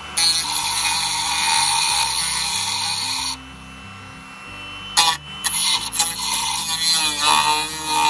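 Dremel rotary tool with a cutoff wheel cutting and melting through the plastic of a weatherproof electrical box. It cuts for about the first three seconds, stops briefly, then cuts again in short spells from about five seconds in. Background music plays underneath.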